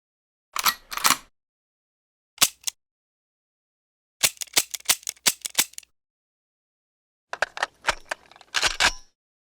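A series of separate gun sound effects: short, sharp cracks and clicks with silence between them. There is a pair, then a single crack, then a rapid burst of about seven, and a dense cluster near the end.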